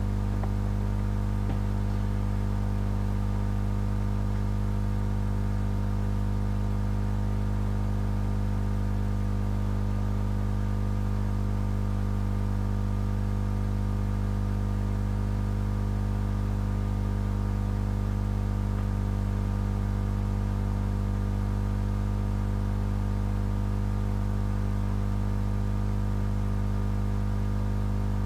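Steady electrical hum with a faint hiss, even and unchanging: a mains-type buzz of the recording chain with no other event.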